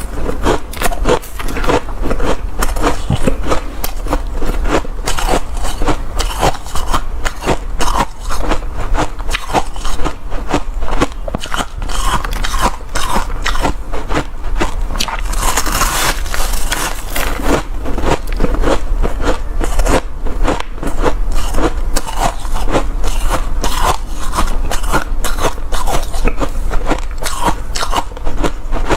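Hard shaved ice and crushed hard ice being bitten and chewed in big bites: dense, continuous crunching close to the microphone.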